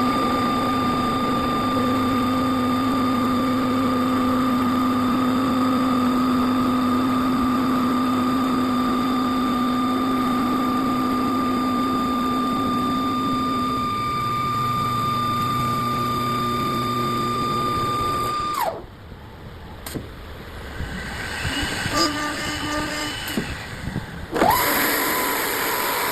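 CNC wood lathe running with a steady high whine and a lower hum, typical of its high-speed spindle. About 18 seconds in the whine winds down, leaving quieter machine noise with a few knocks. Near the end it spins up again with a rising whine.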